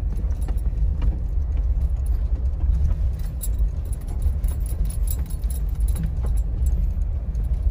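Jeep Wrangler driving on a gravel dirt trail, heard from inside the cabin: a steady low rumble of engine and tyres, with scattered light rattles and clicks throughout.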